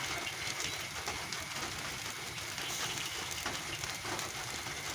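Steady hiss of rain falling, with faint scattered crackles from the embers of a wood fire.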